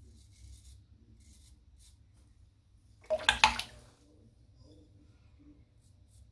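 Shavette blade scraping neck stubble in short, faint strokes, then a brief, loud burst of several sharp knocks about three seconds in.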